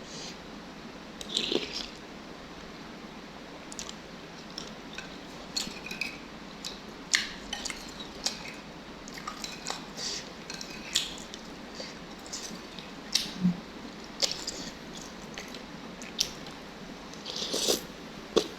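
Eating sounds from a bowl of noodle soup: irregular small clicks, squelches and chewing noises, with utensils tapping the bowl, a couple of them louder.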